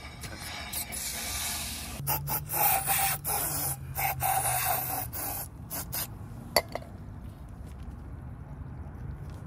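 Aerosol can of Fluid Film rust preventive hissing in several short sprays into a hole in the car's rocker panel, followed by a single sharp click.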